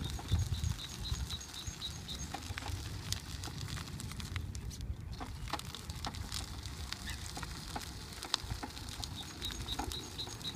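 Gravel crunching under a powered wheelchair's tyres as it rolls along, many small scattered clicks over a low rumble. Near the start and again near the end comes a quick run of high, evenly spaced chirps.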